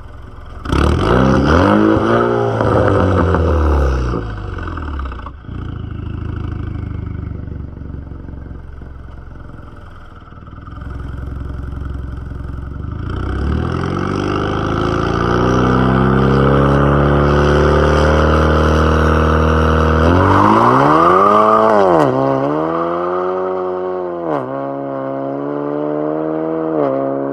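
Chevrolet Camaro 2.0 turbo's turbocharged four-cylinder engine revving. A sharp rev about a second in rises and falls back, with a few scattered pops as the revs drop. Then a long, steady climb in pitch over several seconds as the car launches, and more revs with pops near the end.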